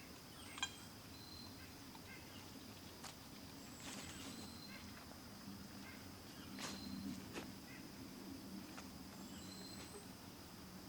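Quiet outdoor ambience with a steady faint high tone, scattered short high chirps and a few soft clicks.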